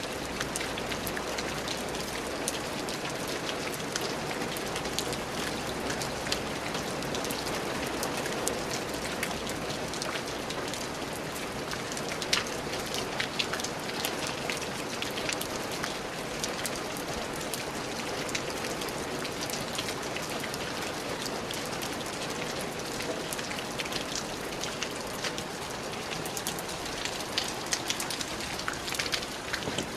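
Steady rain falling, a continuous hiss with many individual drops pattering and ticking on a surface, some sharper drop hits scattered through.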